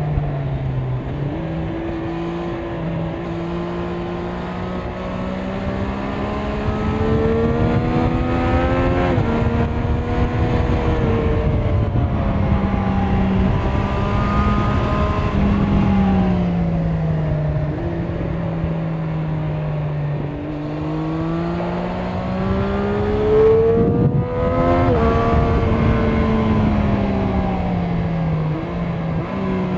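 Triumph Street Triple 765 RS's three-cylinder engine through its stock exhaust while riding, pulling up in pitch under acceleration and dropping sharply at upshifts about 9 s and 25 s in, falling away gradually as the throttle is rolled off in between.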